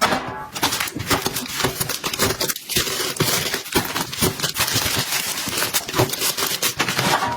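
Items being handled and set down at close range: a quick, uneven string of taps, clicks and scrapes.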